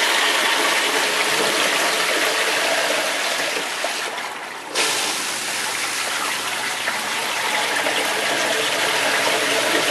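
Water gushing steadily into a basement sump pit, with the sump pump running nonstop and barely keeping up with the inflow. The rush thins out briefly about four seconds in, then comes back at full strength.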